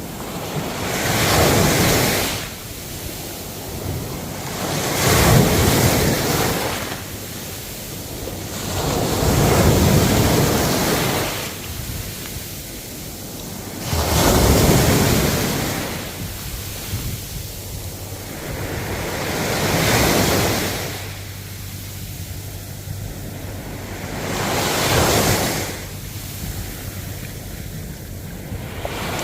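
Ocean waves breaking and washing in, a rushing surge that swells and falls away about every four to five seconds, six times over.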